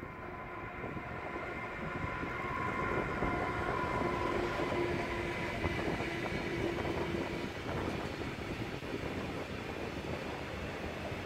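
DB class 189 electric locomotive hauling a freight train of tank wagons past, its steady electric whine heard for the first several seconds over the rolling noise of wheels on rails. The noise of the tank wagons rolling by follows and carries on.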